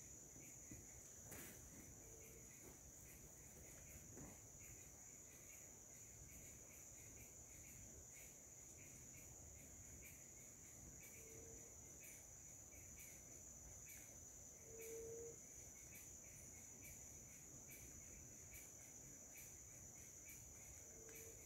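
Faint forest insects: one steady, high-pitched insect drone, with another insect chirping about two or three times a second beneath it. Four short, low notes, likely from a bird, sound several seconds apart, and there are a couple of faint clicks near the start.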